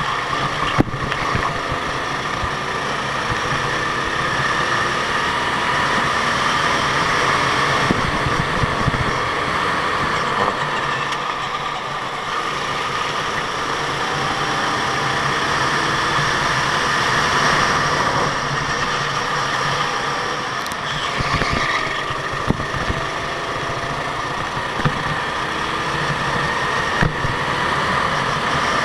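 Go-kart engine noise: a continuous running drone whose pitch shifts a little as the engines rev, with a few short sharp knocks.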